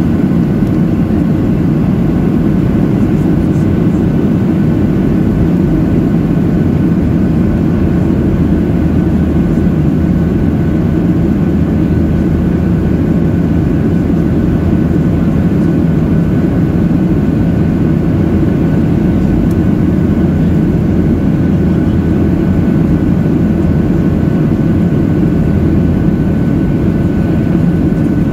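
Steady cabin drone of a Boeing 737-800 in flight, heard from inside the cabin: its CFM56-7B turbofan engines and the rushing airflow make an even low rumble, with a faint steady high whine above it.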